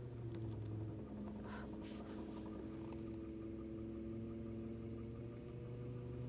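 Car engine and gearbox running with a steady low hum and several steady whining tones, a few faint clicks over them; the car is recorded for a knock in its gearbox.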